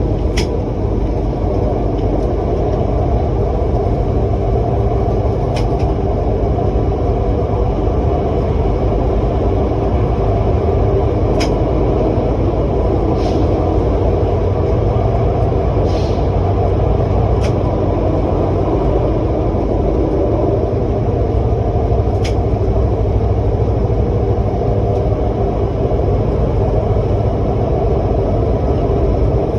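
Steady rumble of a moving vehicle running continuously, with a few short high clicks now and then.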